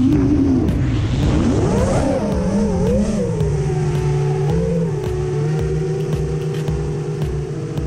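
FPV quadcopter's brushless motors and propellers whining. The pitch swoops up and down with the throttle for the first three seconds or so, then holds a steadier tone.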